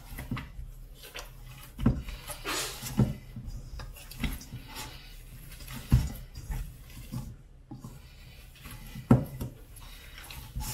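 Hands rubbing butter into flour in a stainless steel mixing bowl: soft rubbing and scraping, with a few dull knocks of the bowl and hands against it at irregular intervals.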